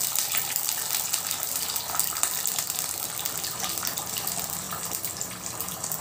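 Four eggs frying in hot oil in a nonstick pan, sizzling steadily with a dense spatter of small crackles.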